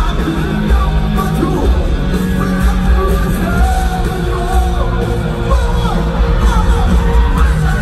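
Live rock band playing: a lead vocalist singing over electric guitars, bass and drums, heard through the sound system of a large hall.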